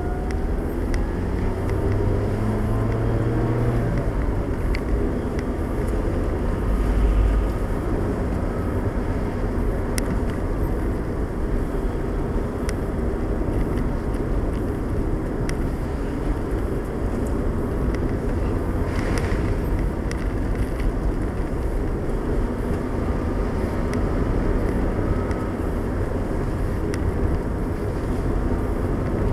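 Engine and tyre noise of a car driving along a wet country lane, heard from inside the cabin. The engine pitch rises over the first few seconds as the car pulls away, and there is a low thud about seven seconds in.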